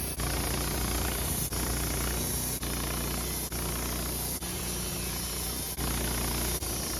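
Woodmizer LT15 sawmill running in sped-up footage: a dense, steady machine noise broken by brief dropouts roughly once a second.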